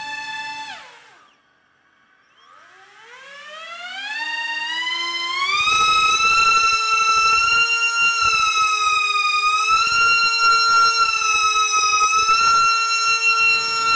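An RC car's four counter-rotating propellers whining down to a brief stop, then spooling back up in a rising whine over about three seconds and holding a loud, steady high whine that wavers slightly in pitch, with gusty air noise underneath, as their thrust holds the car against the underside of a table.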